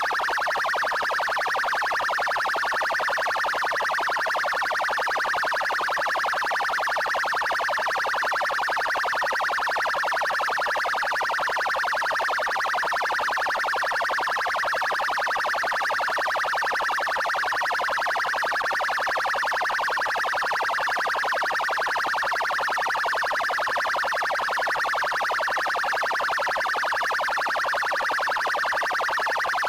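Electronic siren of a Curitiba military police (PMPR) car sounding its 'trail' tone, held steady without a break.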